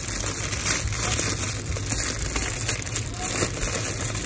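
Clear plastic wrapping crinkling and crackling as hands pull it open and handle it, in a dense run of small crackles.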